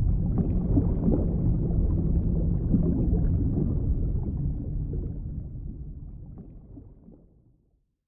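A low, dense rumble with faint clicks and faint steady tones, fading out over the second half into silence.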